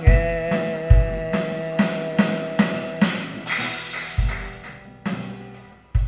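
Electronic drum kit played in a steady beat, deep kick-drum hits with lighter snare and cymbal strokes between them, getting quieter toward the end. A held note rings over the drums for the first three seconds and then stops.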